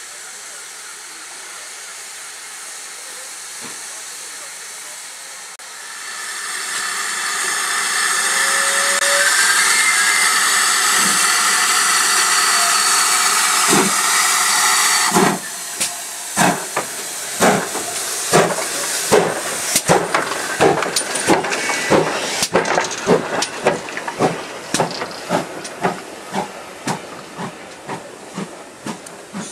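GWR 'Large Prairie' 2-6-2T tank locomotive 4160 getting its train away: a loud steady hiss of steam builds about six seconds in, then from about halfway sharp exhaust beats follow, coming faster as it gathers speed, with the coaches' wheels clattering past near the end.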